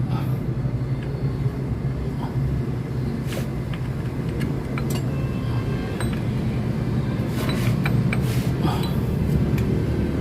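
Scattered light metallic clinks and taps as steel timing gears are handled and fitted onto an engine's front, over a steady low rumble.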